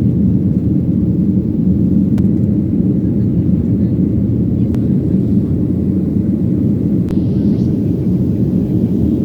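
Steady low rumble of a passenger airliner's cabin in flight, with three faint clicks.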